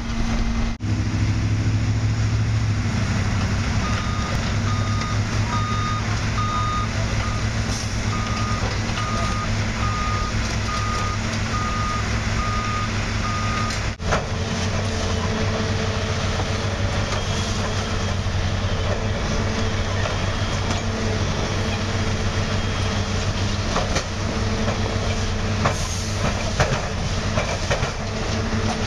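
Diesel engines of railroad track-maintenance machines running steadily. A backup alarm beeps in a steady series, starting about four seconds in and stopping at about fourteen seconds. A few metal knocks come near the end.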